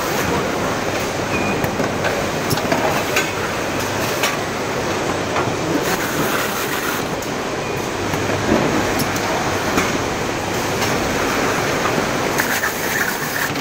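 Packaging-line machinery running steadily: conveyors, robot cells and a carton-taping machine make a continuous clattering factory noise, with scattered sharp clicks and knocks.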